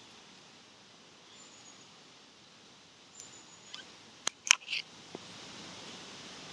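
A quick cluster of sharp clicks about four and a half seconds in, over a quiet steady outdoor hiss, with a few faint high chirps earlier.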